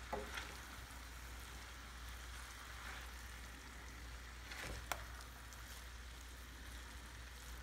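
Chicken and vegetable filling sizzling faintly in a stainless sauté pan as it is stirred with a silicone spatula, with a light click about five seconds in.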